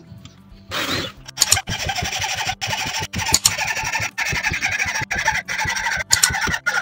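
Hacksaw cutting across a wooden block clamped in a vise: back-and-forth rasping strokes with brief breaks where the stroke turns, starting about a second in.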